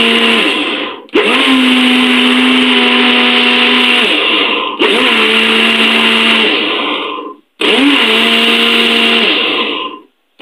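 Electric juicer-blender motor running in pulses of a few seconds, churning cultured cream (set malai) to bring out butter. It stops and restarts three times, and each start rises in pitch before holding steady.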